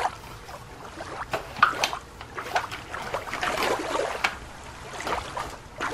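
Plastic toy claw grabber digging and scooping through sand: irregular gritty scrapes with a few sharp clicks.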